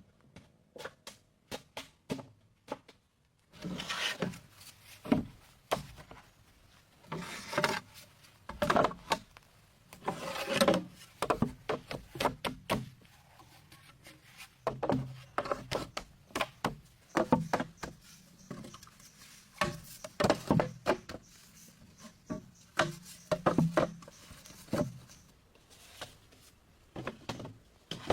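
Bamboo being worked by hand: irregular hollow knocks and taps mixed with longer scraping and rubbing strokes.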